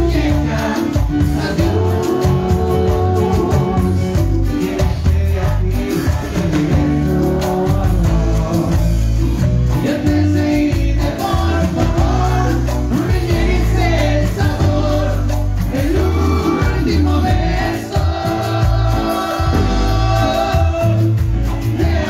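A cumbia band playing live through the stage sound system: keyboard, bass and percussion with a voice singing over them.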